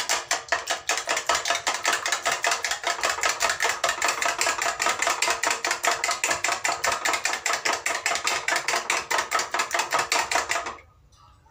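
Raw eggs being beaten briskly with a spoon in a bowl: a fast, even clatter of about six strokes a second that stops suddenly near the end.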